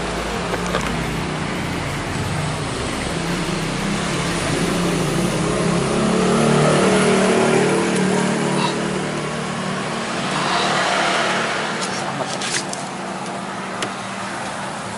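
A motor vehicle's engine passing, swelling to its loudest about seven seconds in and then fading, over steady traffic noise. A few sharp clicks near the end.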